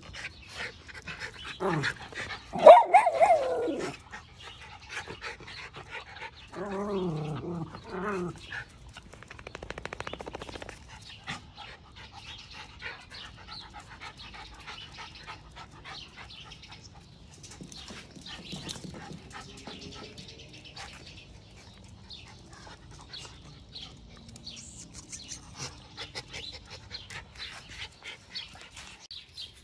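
Miniature Schnauzers barking and yelping as they scuffle in play. The loudest outburst comes about three seconds in and a shorter burst of wavering calls follows around seven to eight seconds. After that it turns quieter, with light scuffling and clicks.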